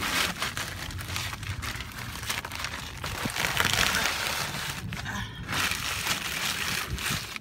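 Continuous rustling and crinkling right against the microphone, loudest a few seconds in, with a brief dip about five seconds in.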